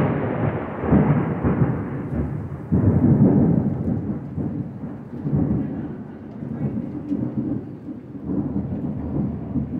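Long roll of thunder, a deep rumble that swells and fades in waves several times, loudest about three seconds in.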